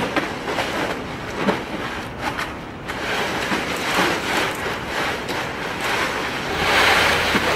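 Heaps of ice cubes rattling, crunching and shifting in a plastic kiddie pool as a polar bear cub rolls and wriggles in them. The sound comes in swells of rustling clatter, loudest near the end.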